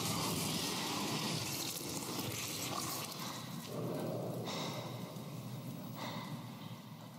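Trailer sound effect: a loud rushing noise that hits suddenly, shifts a few times, and fades out near the end.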